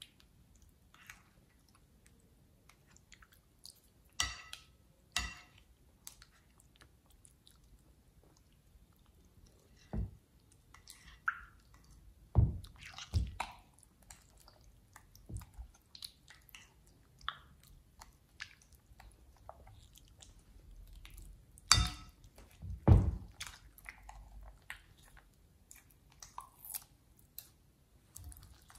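Thick glossy slime worked in a glass bowl, stirred and lifted with a metal spoon and kneaded by hand near the end. Scattered sticky squelches and wet pops, with a handful of louder, sharper pops spread through.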